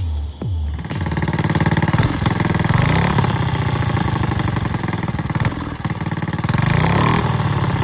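Small air-cooled single-cylinder four-stroke engine (ATC70-type, about 72 cc) running steadily at idle, coming in about a second in after a moment of music.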